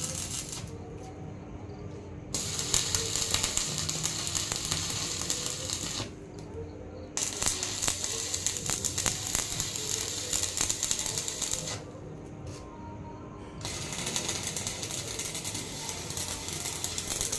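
Electric arc welding crackling and sizzling in runs of a few seconds, the arc stopping and restarting three times.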